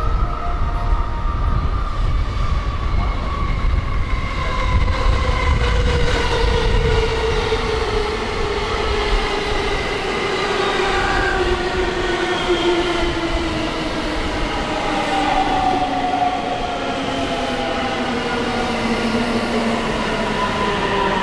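JR Central 313 series electric train pulling in and slowing down. Its traction motor whine falls steadily in pitch over a rumble of wheels on rail, and the rumble eases in the second half.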